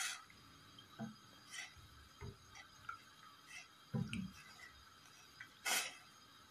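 Wooden slotted spatula stirring herbs and sliced ingredients in water in a metal pot: scattered soft splashes and swishes with a few dull knocks, the loudest swish near the end.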